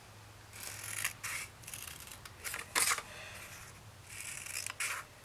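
Small scissors snipping through red cardstock in several short cuts, cutting away the corners of a scored paper square. The sharpest snip comes about three seconds in.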